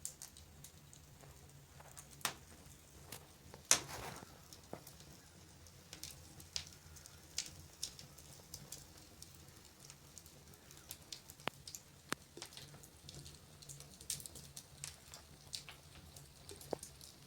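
Wood fire crackling in a fireplace: irregular sharp pops and snaps, a louder pop about four seconds in, over a faint low hum.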